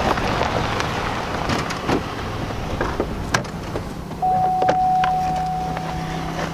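Sedan rolling to a stop on a gravel dirt road with a noisy crunch and rumble, then a few clicks from the door. About four seconds in, a steady electronic warning tone sounds for about two seconds as the driver's door opens, over a low hum.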